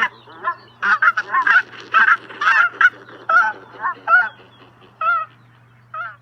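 Geese honking: a quick run of overlapping honks that thins out to single honks about a second apart.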